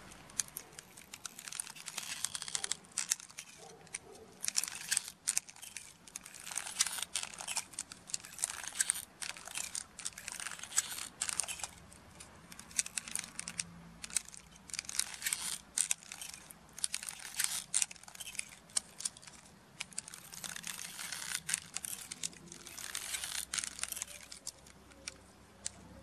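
Repeated bursts of plastic clicking, rattling and crinkling from a 3D-printed PLA Phoenix prosthetic hand being handled and flexed, the printed fingers and joints knocking as the hand closes and opens.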